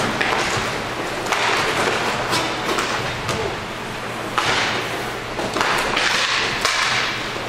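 Inline hockey play: sharp knocks and thuds of sticks, the puck and the boards, over swells of rushing noise from skate wheels on the rink floor.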